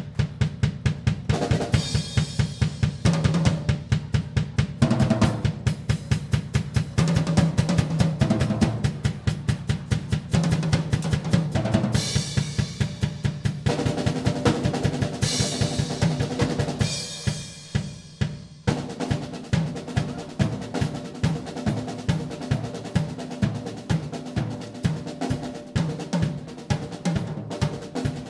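Acoustic drum kit played hard and fast: dense rolls on snare and toms over the bass drum, with cymbal crashes around the middle. In the last third it settles into a lighter, steadier beat.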